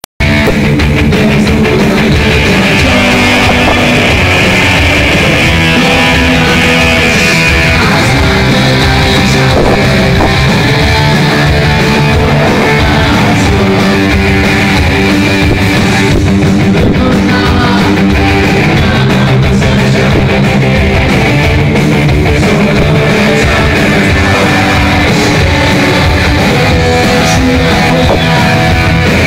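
Punk rock band playing live and loud, electric guitars over a steady drum beat, without a pause.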